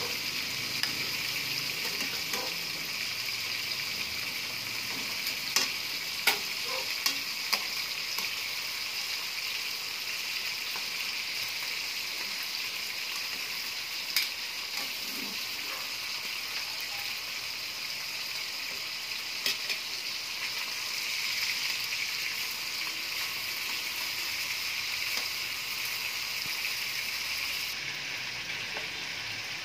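Chicken pieces shallow-frying in oil in a wok: a steady sizzle with scattered short, sharp pops and clicks.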